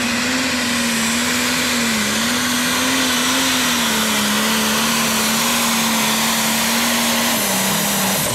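A John Deere Pro Stock pulling tractor's single-turbo diesel engine running flat out under full load during a pull. It is a loud, steady engine note that sags slightly about two seconds in and again near the end.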